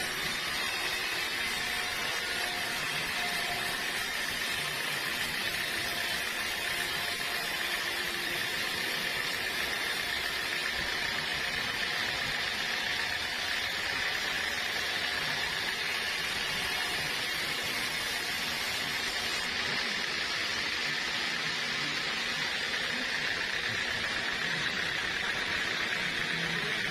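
Sawmill saw running steadily, a continuous hissing machine noise with a steady high tone that does not change.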